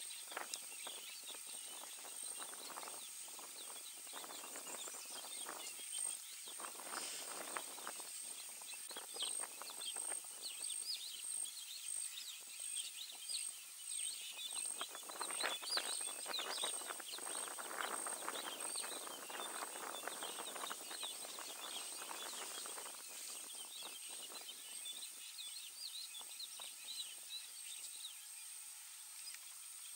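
Outdoor bush ambience: small birds chirping over a steady high-pitched whine, with bouts of rustling and crackling in the brush that thicken around the middle.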